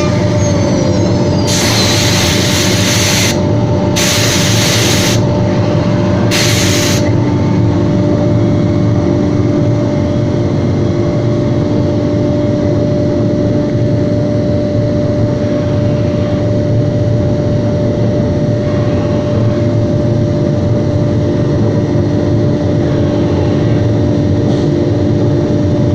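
CNC router's high-speed spindle running steadily while milling an MDF furniture front, a constant machine drone with a steady hum. Three short bursts of loud hiss come in the first several seconds.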